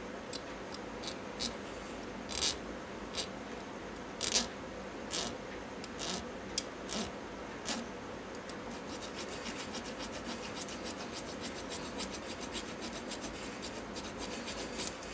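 A small abrasive hand tool scraping along a tiny chrome part of a diecast model truck. Scattered separate strokes come first, the loudest about four seconds in. From a little past halfway it turns into a quick, even run of short strokes.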